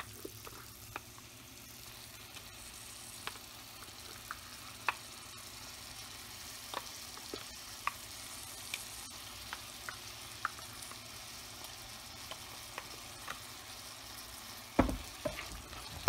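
Shrimp, onion and tomato frying in oil in a steel pot: a steady faint sizzle with scattered small pops. Near the end a wooden spatula knocks and scrapes against the pot as the masala is stirred in.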